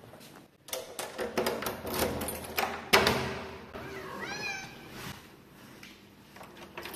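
A run of sharp knocks and clicks, the loudest about three seconds in, then a house cat meows once, a short rising-and-falling call, about four seconds in.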